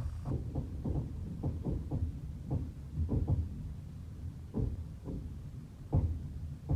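Train wheels clacking over rail joints: groups of sharp knocks at uneven intervals over a steady low rumble of the moving train.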